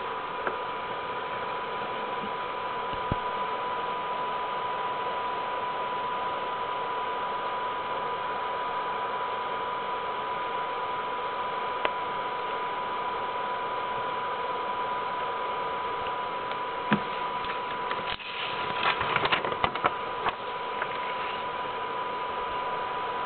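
Steady recording hiss with a constant thin whine, broken by a few single clicks and a cluster of clicks and rustling from camera handling about 18 to 20 seconds in.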